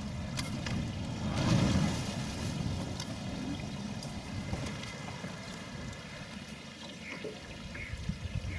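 Low, steady rumble of a boat moving along a river, with water and wind noise. The rumble swells louder about a second and a half in, and a few short high chirps come near the end.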